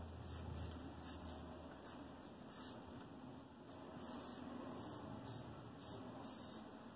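Stick of charcoal scraping across sketchbook paper in short, irregular strokes: a faint, high, scratchy rasp, roughly a dozen strokes.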